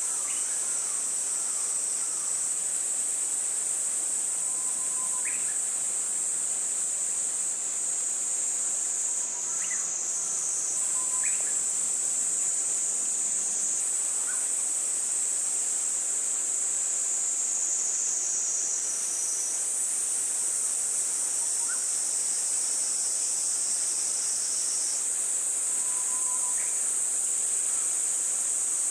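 Steady, high-pitched chorus of insects trilling, with a few short, faint calls scattered through it.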